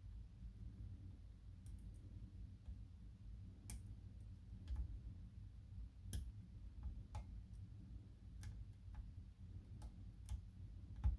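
Faint, irregular metal clicks of a lock pick and tension wrench working the pins of a tiny five-pin DOM cabinet lock, with a louder knock near the end.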